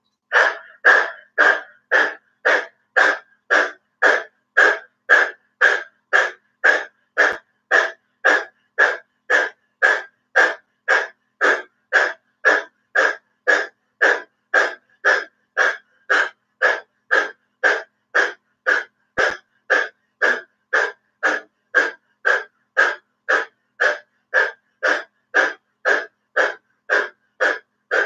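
A woman panting like a dog through her open mouth with her tongue stuck out, pushing hard breaths from the back of the throat with the belly in a rapid, even rhythm of about two breaths a second: the dog breath (lion breath) pranayama exercise.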